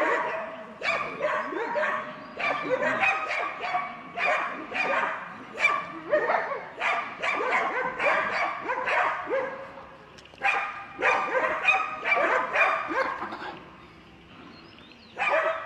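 Several dogs barking rapidly and repeatedly at a gaur, their barks overlapping, with a lull of about two seconds near the end before the barking starts again.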